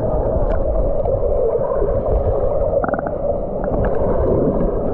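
Muffled underwater sound picked up by a camera submerged in a swimming pool: a steady rushing rumble of churned water and bubbles stirred by a swimmer, with a short run of clicks about three seconds in.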